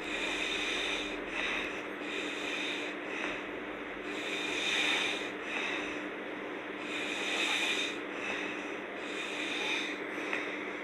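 A sleeping woman snoring: a run of noisy, rasping breaths, one every second or two.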